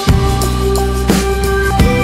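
Background music with a drum kit playing over held pitched notes.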